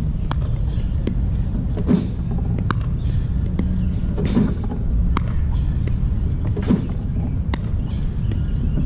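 Pickleball paddle volleying machine-fed balls: three sharp pops about two and a half seconds apart, with fainter clicks between, over a steady low rumble.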